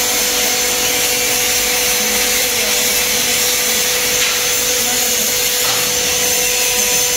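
A 6 kW fiber laser cutting head cutting steel plate, giving a steady loud hiss with a faint steady tone underneath.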